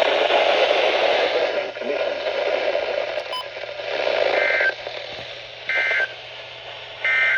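Weather radio receiver hissing with static, then three short two-tone data bursts about a second and a half apart: the SAME end-of-message code that closes an Emergency Alert System weather warning.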